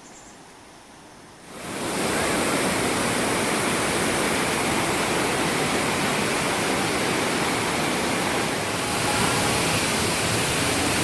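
Waterfall's steady rush of falling water, faint at first and then jumping much louder about a second and a half in.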